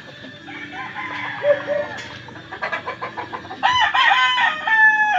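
Gamecock rooster crowing loudly, starting about three and a half seconds in and ending on a long held note, with shorter, fainter calls from other roosters before it.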